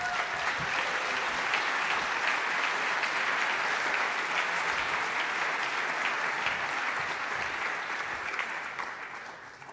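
A large seated audience applauding, the clapping steady and then dying away near the end.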